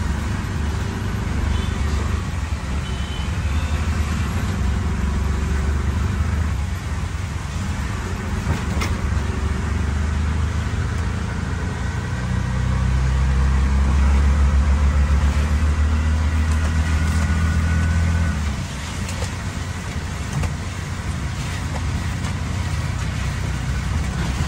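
Auto-rickshaw's small engine running as it drives in traffic, under a steady hiss of heavy rain and wet road. The engine note grows louder a little past the middle, then drops back suddenly about three-quarters of the way through.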